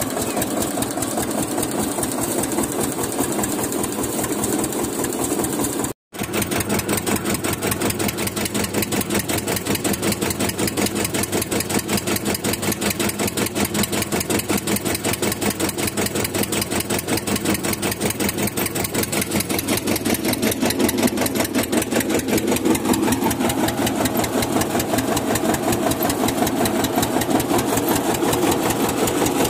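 Tractor diesel engine running steadily with a rapid, even beat, driving a borewell pump through a flat belt. The sound cuts out for a moment about six seconds in, then carries on as before.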